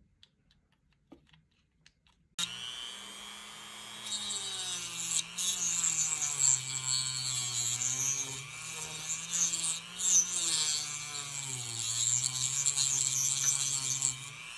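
A Dremel rotary tool with a cut-off wheel starts about two seconds in and runs with a motor whine that wavers in pitch. From about four seconds the wheel grinds into a small model-locomotive part, adding a loud high cutting hiss over the motor.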